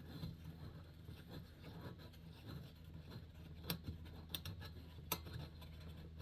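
Faint clicks and light taps of small metal parts of a Coleman 220J lantern being handled as a nut is run down by hand, a few sharp clicks bunched in the second half, over a low steady hum.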